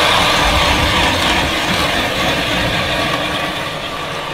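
Power ice auger running steadily as it drills a hole through the ice.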